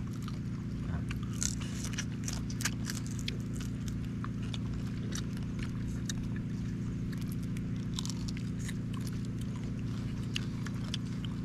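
Grilled mantis shrimp being peeled and eaten: many small irregular cracks and crunches of shell being broken and chewed, over a steady low hum.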